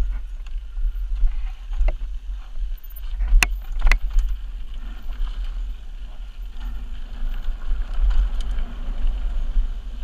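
Mountain bike riding fast down a dirt singletrack, heard from a camera mounted on the rider or bike: a steady low rumble of wind and trail vibration on the microphone, tyres on dirt, and a few sharp clicks and rattles from the bike, the loudest two about three and a half and four seconds in.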